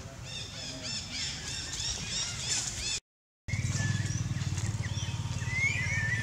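Birds chirping in rapid, repeated phrases. After a brief cut to silence about three seconds in, louder gliding bird calls come over a steady low drone.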